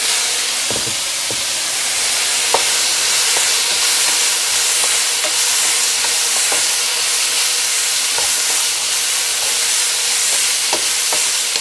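Chicken strips, onion and bell pepper strips sizzling steadily in a hot oiled frying pan. A wooden spoon stirs them, with a few light clicks against the pan as the peppers are dropped in and turned.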